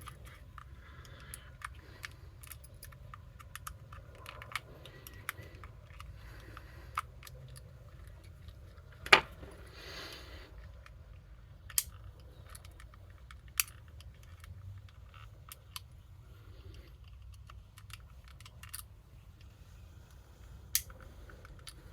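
Small plastic clicks and light taps of a screwdriver as the clip-on cover of a car's master window switch is pried at; one sharper click about nine seconds in, with a few more scattered after it.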